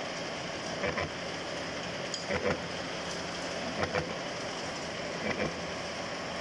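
Milling machine cutting a worm thread into a metal shaft with a disc form cutter: a steady machining drone that swells with a heavier cutting noise about every second and a half.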